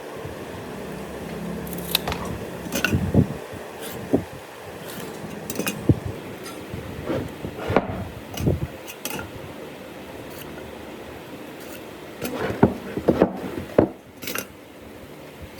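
Irregular knocks, taps and clatter of hard objects being handled and set down in a woodworking shop, with a quick cluster of knocks near the end.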